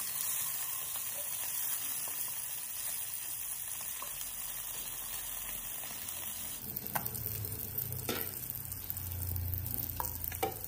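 Whole bata fish shallow-frying in hot oil in a non-stick kadai, sizzling steadily on medium flame. In the second half, a few short knocks and scrapes come from a wooden spatula as the fish are turned in the pan.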